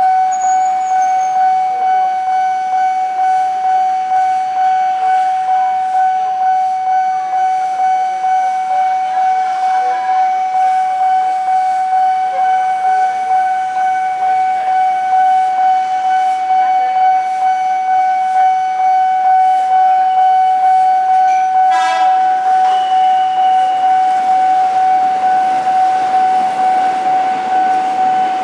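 Railroad level-crossing warning alarm sounding a continuous electronic tone that pulses evenly. About three-quarters of the way through a short, higher beep cuts in, and near the end the rumble of an electric commuter train passing over the crossing rises under the alarm.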